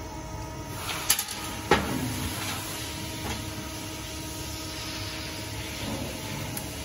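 Steady hum of an automatic screen printing machine, with two sharp clicks a little over a second in, the second the loudest, then a light hiss.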